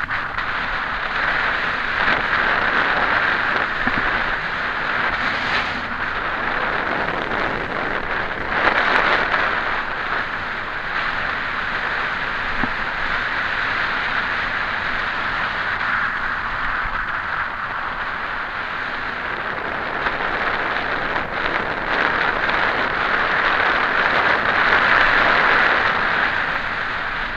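Wind rushing over a Drift HD action camera's microphone on a mountain bike descending a paved road at speed, a steady noise that swells about a third of the way in and again near the end.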